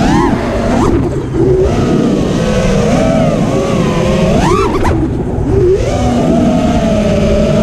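Onboard audio of a 5-inch FPV quadcopter: four brushless 2450 kV motors spinning three-blade props whine, the pitch rising and falling with the throttle. About four and a half seconds in there is a sharp blip that drops away, then a steadier whine that slowly sags.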